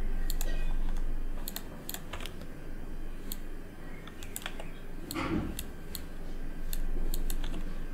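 Computer keyboard keys being tapped in scattered, irregular clicks.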